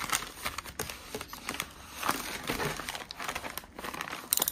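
Parcel packaging rustling and crinkling as a package is handled and opened by hand, with irregular small clicks and a brief louder rasp near the end.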